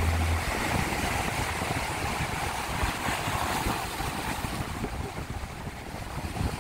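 Rough surf breaking and washing over shoreline rocks, with wind buffeting the microphone in low rumbling gusts.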